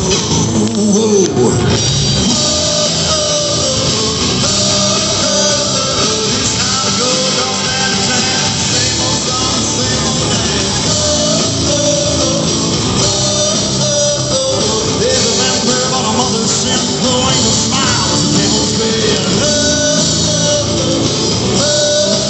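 Live rock band playing loud and steady, with electric and acoustic guitars, drums and fiddle, heard from within the audience.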